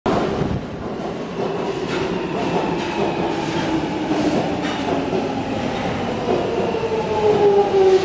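London Underground 1996 Stock train pulling into the platform and slowing, its motor whine falling steadily in pitch over the rumble of wheels on the rails.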